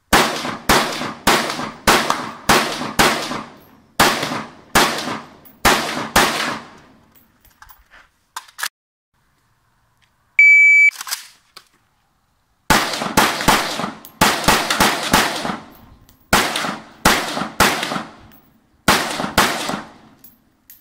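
Semi-automatic LM4 rifle fired in rapid strings, about a dozen shots at roughly two a second, each ringing out briefly. A shot timer's short steady beep sounds a few seconds after the first string stops, and a second string of about a dozen rapid shots follows.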